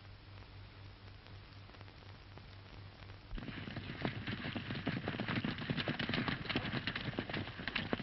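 Hooves of several galloping horses, a dense clatter that starts about three and a half seconds in, over the steady hiss and hum of an old film soundtrack.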